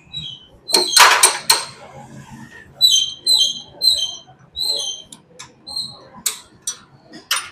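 Metal tools clinking and knocking against motorcycle parts, a cluster of sharp knocks about a second in and single clicks near the end, with a run of short high chirps in the middle.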